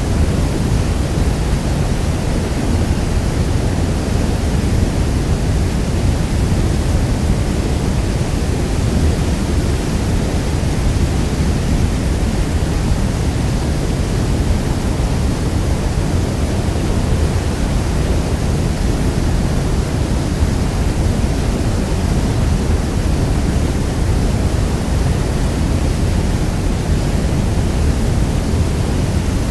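Niagara Falls' water thundering down in a steady roar, a dense even rush weighted toward the low end with no breaks or changes.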